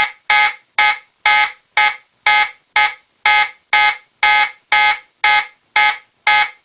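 Simplex 2901-9806 fire alarm horn sounding in march time: loud, evenly spaced short blasts repeating about twice a second.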